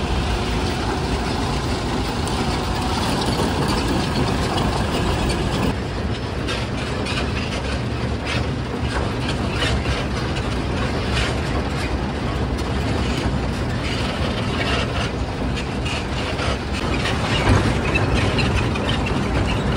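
Hokuriku Juki Kogyo narrow-gauge diesel locomotive on the move: a steady engine drone under frequent clanking and rattling of wheels and running gear on the track, the clanks coming thicker from about six seconds in.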